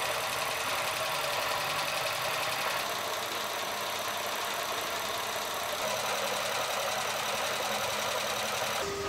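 A home-built peanut oil press runs steadily, its electric motor and belt drive making an even mechanical chatter. The tone shifts slightly about three and six seconds in.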